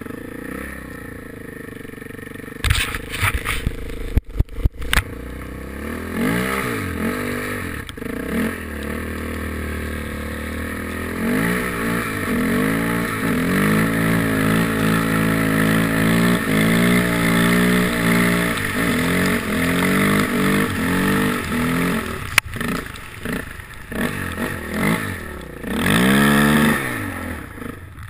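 Suzuki LT-Z400 quad's single-cylinder four-stroke engine revving up and down again and again as it is ridden, with a cluster of sharp knocks and clatter a few seconds in.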